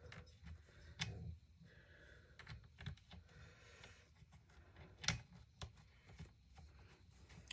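Faint, scattered clicks and taps of small chainsaw parts being handled during reassembly, with a few sharper clicks about a second in, near three seconds and about five seconds in.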